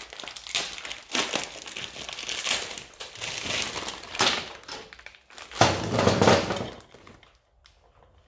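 A motorcycle roller chain rattling and clinking as it is handled, its links jangling against each other. The rattle is loudest about six seconds in, as the chain is brought up onto the rear sprocket, and dies away about a second later.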